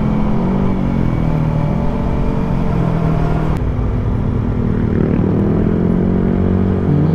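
Kawasaki ZX-4RR's inline-four engine running on its stock exhaust while riding, the engine note falling and rising with the throttle, dipping about halfway through and climbing again near the end.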